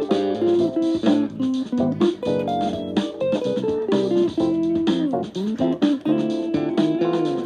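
Guitar played solo and improvised: a run of single picked notes with frequent string bends, over some lower chord notes.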